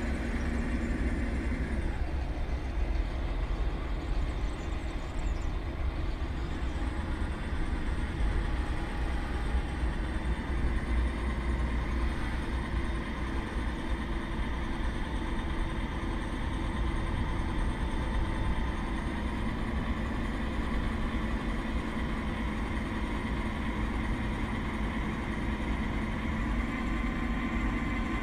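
Self-built 1:8 scale RC John Deere 9560R tractor running as it pushes sand with its front blade: a steady whine from its drive motors and hydraulics that drifts slightly in pitch, over a constant low rumble.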